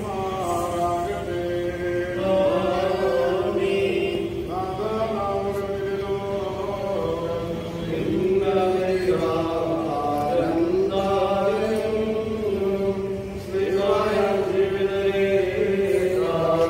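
Memorial prayer chant: voices singing a slow, continuous melody in phrases of a few seconds each.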